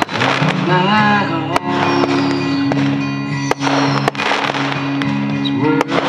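Aerial firework shells bursting with several sharp bangs, over a song with steady musical tones and singing.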